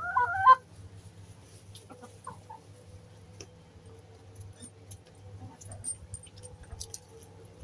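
Domestic hen giving one loud call with a wavering, bending pitch in the first half-second, then a few faint short calls.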